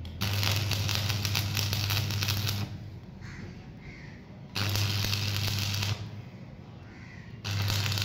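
Stick arc welding on a steel pipe: the arc crackles and sizzles in three runs, about two and a half seconds, then about a second and a half, then another starting near the end. Each run has the welding machine's low hum under it.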